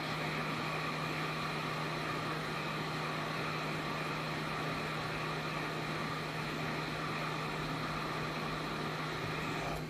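Hot air rework station blowing steadily onto a Nintendo Switch's P13USB chip to reflow its solder: an even airy rush with a constant low hum and a few steady higher tones, cutting off near the end.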